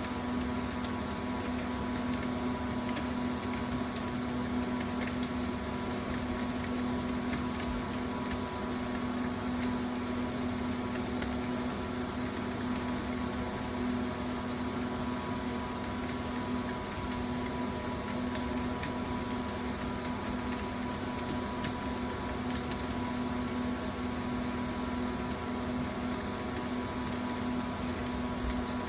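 Steady mechanical hum with a constant low tone, like a running fan or air conditioner.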